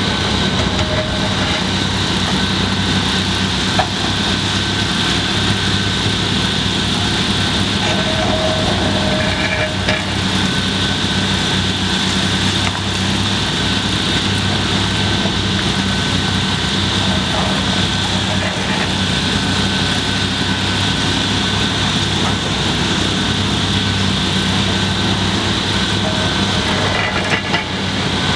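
Steady drone of heavy diesel demolition machinery: a Komatsu PC350 excavator working alongside an engine-driven water-spray dust cannon, with a steady high hiss over the engine note. Three brief knocks: about four seconds in, near ten seconds and near the end.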